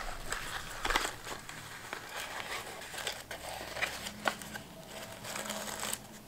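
Light rustling and crinkling of paper and thin card as a small folded card gift box is handled and opened by hand, with scattered soft clicks.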